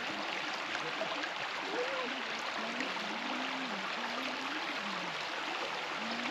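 Steady rush of flowing water. A faint distant voice is heard in the middle.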